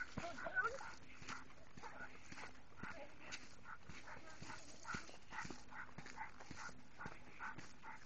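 A dog panting in a steady rhythm, about two breaths a second, with a short rising whine in the first second.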